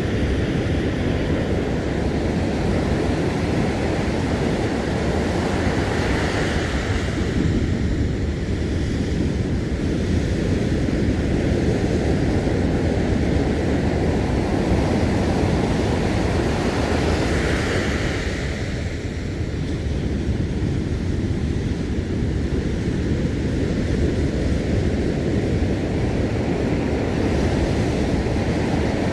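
Sea surf washing and breaking on a sandy beach, a steady rush of waves that swells with a louder breaking wave about six seconds in and again just past halfway. Wind buffets the microphone underneath.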